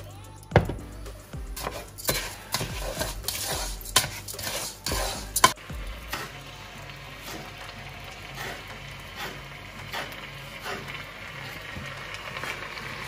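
Risotto rice sizzling as it toasts in oil in a pot and is stirred with a plastic spatula. In the first half there are several sharp knocks of the spatula and pans against the pot and hob. Later come lighter, fairly regular taps of a knife on a wooden chopping board.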